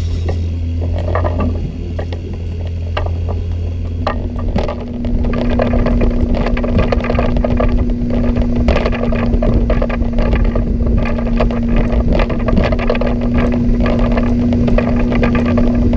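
Boat's outboard motor running the boat at speed, its steady drone getting louder about four and a half seconds in. Water noise and scattered knocks run along with it.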